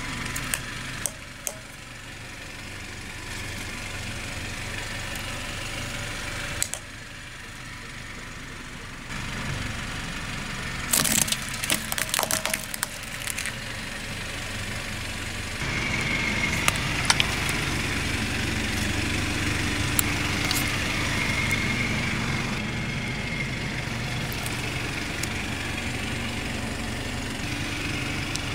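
A car's engine idling as the car creeps over small objects, with sharp cracks and snaps as hard plastic toys and plastic tubes of wooden toothpicks break under the tyre. The loudest run of cracking comes near the middle, with single snaps after it.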